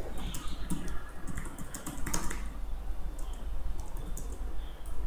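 Typing on a computer keyboard: a quick, irregular run of key clicks as a sentence is typed.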